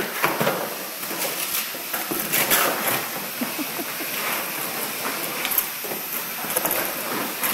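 Plastic car bumper scraping and clattering on a concrete floor as two dogs tug and drag it, with irregular knocks and scrapes.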